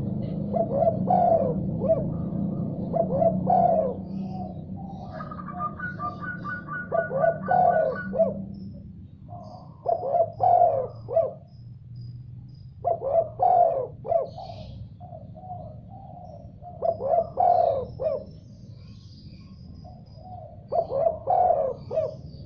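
Spotted dove (tekukur) cooing in repeated phrases of several notes, with gaps between phrases. From about five to eight seconds in, a quicker, higher series of even call notes from another bird runs over it, and a low hum sits under the first several seconds.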